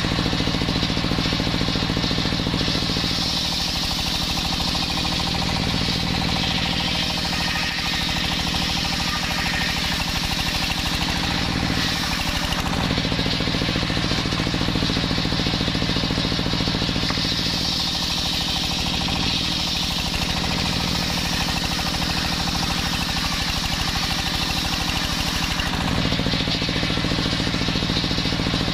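Homemade belt-driven circular sawbench ripping jackfruit wood into boards: a steady engine drone under the loud hiss of the blade cutting. The low engine note changes a few times as the load of the cut varies.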